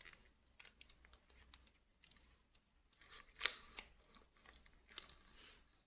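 Faint handling of a molded-case earth leakage circuit breaker: a few light clicks, with one sharper click about three and a half seconds in.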